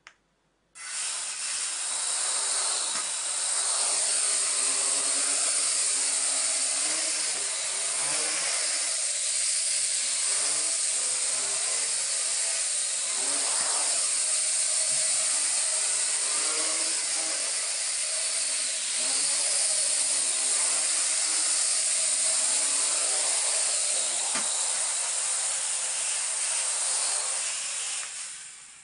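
Think Gizmos Turbo Drone toy quadcopter flying: its four small electric motors and plastic propellers whir at high speed, starting abruptly about a second in. The pitch wavers up and down as the throttle changes, and the sound winds down near the end.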